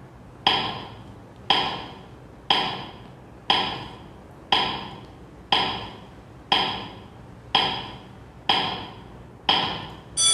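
Countdown timer sound effect: ten sharp, woody clock ticks, one a second, each dying away quickly. An alarm-clock bell starts ringing at the very end to mark that the time is up.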